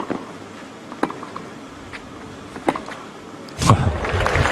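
Tennis rally: sharp pops of the ball off the racket strings and court bounces, about one a second. Near the end a crowd breaks into cheering and applause.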